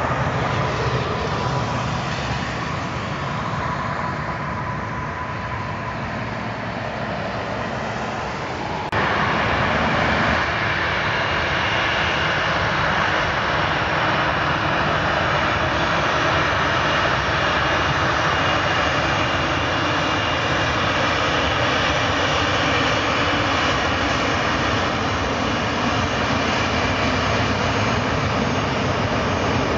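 Boeing 737-800's CFM56-7B jet engines: a falling whine as they wind down during the landing rollout, then, after an abrupt cut about nine seconds in, a louder steady engine whine as the jet taxis.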